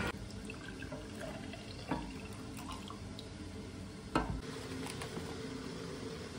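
Juice trickling and pouring into a glass mug, with a light knock about two seconds in and another about four seconds in.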